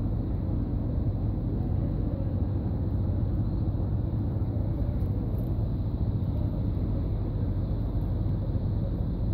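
Steady low rumble of outdoor background noise, even throughout with no distinct sounds standing out.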